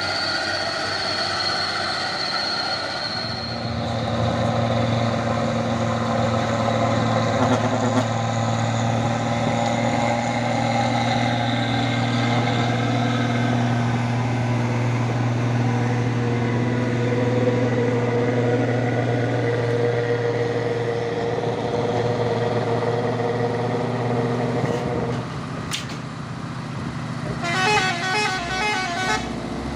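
Heavy truck: a steady low drone held unchanged for about twenty seconds, stopping abruptly a few seconds before the end.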